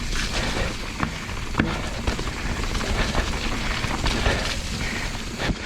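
Mountain bike riding down a wet, muddy trail: a steady rush of tyre and riding noise, broken by several sharp knocks as the bike hits rocks and roots.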